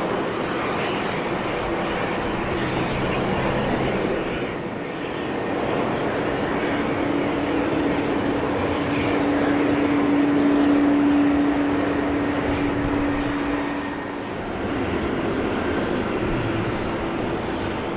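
Jet airliners' turbofan engines running at low power as the aircraft roll and taxi. First comes an Embraer ERJ-135. After a brief dip about a quarter of the way in, a DHL cargo jet taxis by, with a steady low drone in its engine noise. After another dip about three-quarters of the way in, a Boeing 777 taxis.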